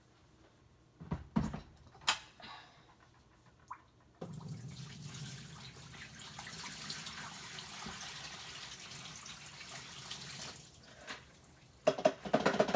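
Water poured from a dehumidifier's tank into a laundry sink, a steady splashing for about six seconds. A few knocks come before it, and a quick rattle near the end.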